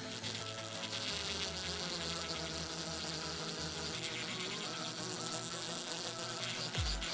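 High-speed rotary tool whining steadily as its burr grinds the aluminium port of a Yamaha Jupiter Z cylinder head during porting.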